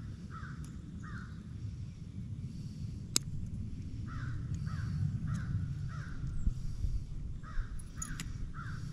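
Crows cawing: runs of three or four short, harsh calls, repeated several times, over a steady low outdoor rumble. A single sharp click about three seconds in.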